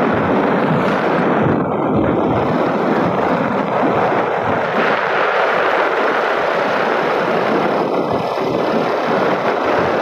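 Steady noise of a vehicle travelling along a paved road, with engine and road noise blended into an even rush.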